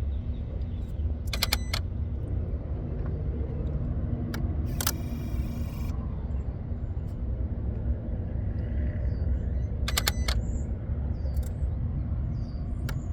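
Under the hood of a switched-off 2023 Kia Sorento, a relay clicks and the electronic throttle body whirs as they cycle on their own. Sharp clicks come a few seconds apart, one followed by a brief whirr about five seconds in, over a steady low hum. The mechanic suspects a circuit staying powered up or shorting to power.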